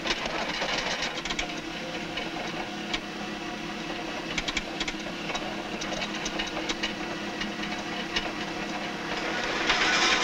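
Steady mechanical running noise: a low hum with hiss and many scattered small clicks, the hiss swelling near the end.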